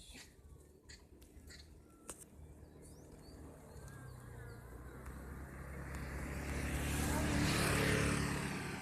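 A motor vehicle approaching and passing by, its engine hum and road noise growing steadily louder to a peak near the end, then starting to fade.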